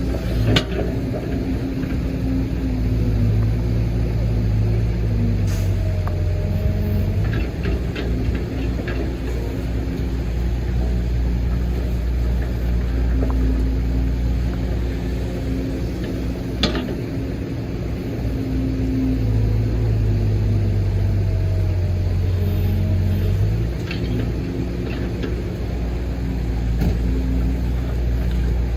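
Case 145D excavator's diesel engine running under hydraulic load through its dig-and-load cycle. The engine note climbs and settles in two similar spells about 13 seconds apart, with a few sharp metallic clanks.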